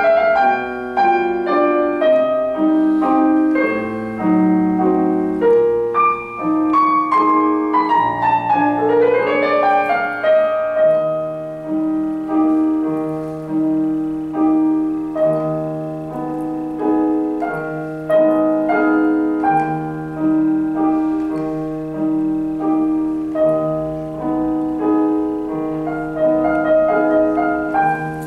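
Solo piano music played on a digital keyboard. About eight seconds in a quick falling run of notes, then a repeated middle note held over a rocking figure in the bass.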